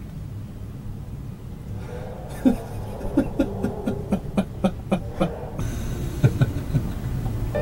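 A man laughing heartily in short, evenly spaced 'ha-ha' bursts, about four a second, starting a couple of seconds in, with a few more laughs near the end. Underneath is a low, steady hum.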